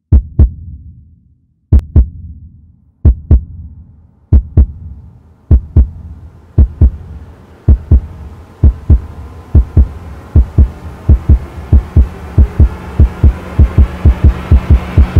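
Heartbeat sound effect in the soundtrack: pairs of deep thumps that come faster and faster, with a drone and a hiss swelling under them in the second half.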